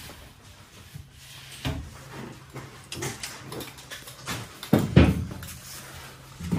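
Drywall crew at work: irregular knocks and thumps as sheetrock sheets are handled against the framing, the loudest pair about five seconds in, over a low steady hum.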